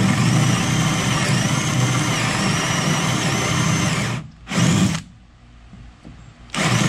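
Bosch cordless drill spinning a Forstner bit into plywood, boring a shallow counterbore: a steady motor whine for about four seconds, a short burst of drilling, then the drill starts again near the end.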